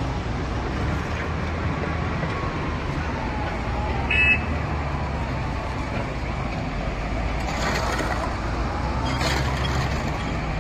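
Steady low rumble of a running vehicle with outdoor noise, and one short, high-pitched toot about four seconds in.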